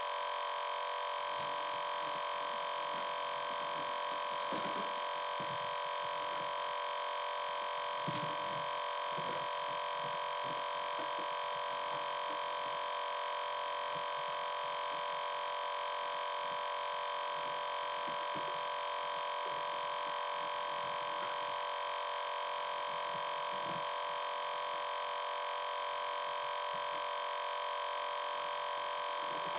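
Steady electronic hum: a constant buzzing tone made of several pitches that does not change, with a couple of faint knocks about four and eight seconds in.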